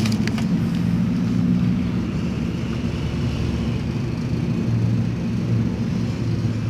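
An engine running steadily nearby, a low, even hum with a slight wavering.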